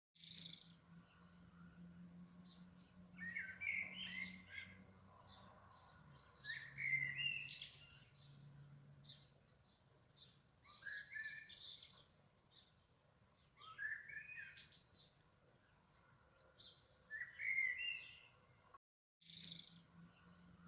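Springtime birdsong: small birds chirping, with a louder warbled song phrase about every three to four seconds, over a faint steady low hum. The sound cuts out briefly near the end.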